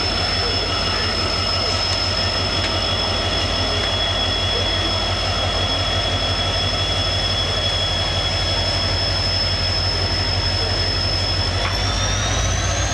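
WDP-4 diesel locomotive running, a deep engine rumble under a steady high turbocharger whine that rises in pitch near the end as the engine is throttled up.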